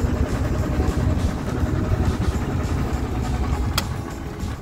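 Small boat's outboard motor running underway, a steady low rumble mixed with rushing noise. A single sharp click comes near the end.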